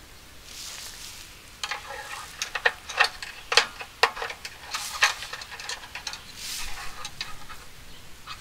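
Oil dipstick being worked loose and pulled from a snowblower's engine to check the oil: a run of sharp clicks and knocks, with a cloth rag rustling in between.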